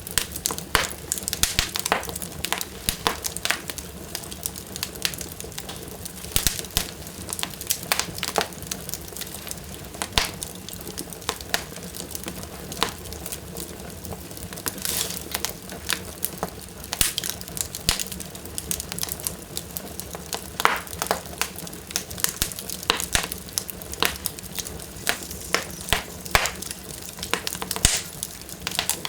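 Wood fire burning in a fireplace, crackling hard with frequent irregular sharp pops and snaps over a steady low hiss.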